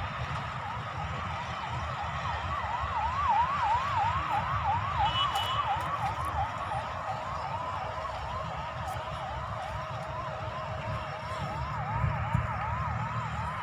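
Electronic siren wailing in quick repeated sweeps, about two a second, getting louder for a while before easing off, over a low rumble.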